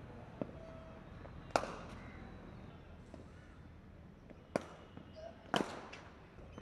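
Cricket bats striking balls in practice nets: four sharp cracks at uneven gaps, the loudest about a second and a half in and another near the end.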